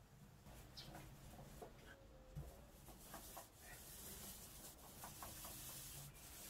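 Faint rubbing hiss of a paint roller rolling over a wall, with a few small clicks.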